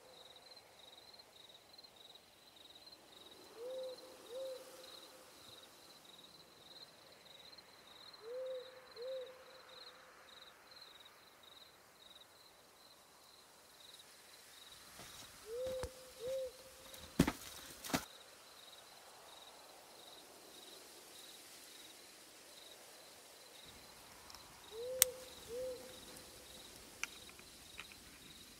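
An owl hooting in short two-note calls, four times spaced several seconds apart, over crickets or other insects chirping in a steady fast pulse. A few sharp clicks near the middle and again near the end.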